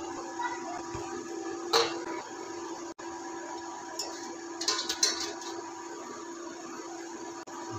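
Stainless-steel cookware clanking: one sharp metallic knock about two seconds in, then a quick run of clatter around four to five seconds as a steel lid is moved on the steamer pot. A steady hum runs underneath.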